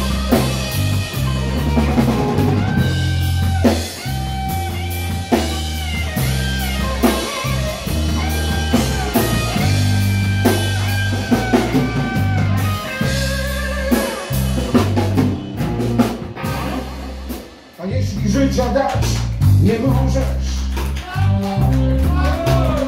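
Live rock band playing an instrumental break: an electric guitar lead with bending notes over bass guitar and a drum kit. The band drops out for a moment about seventeen seconds in, then comes back in.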